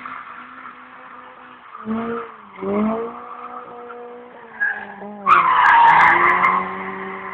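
Toyota AE86 Corolla drifting: its four-cylinder engine revs up and down in surges while the tyres skid. The loudest tyre screech and engine noise come about five seconds in and last over a second.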